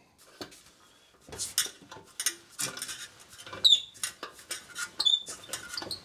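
Bolts being undone to free the drive motor from a Swardman Electra 2.0 cylinder mower's drive roller: a run of small metallic clicks and taps, with two short high squeaks, one about three and a half seconds in and one about five seconds in.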